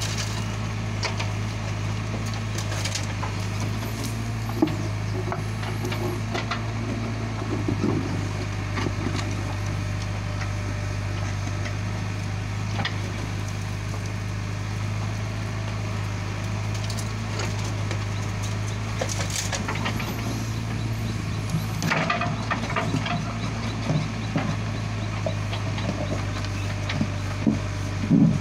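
JCB 3DX backhoe loader's diesel engine running steadily while its backhoe bucket digs into rocky soil, with scattered crunches and knocks of stones and earth, loudest near the end.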